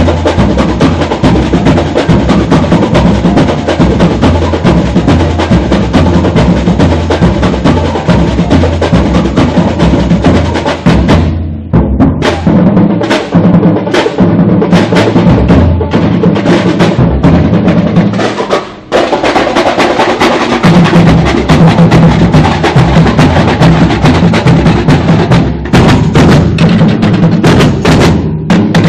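Samba batería playing a samba-enredo groove, low surdo drums under dense snare and small-drum rhythm. About eleven seconds in the rolling snares drop out to a break of sharp accented hits. After a short gap near nineteen seconds the full groove comes back in and it stops at the end.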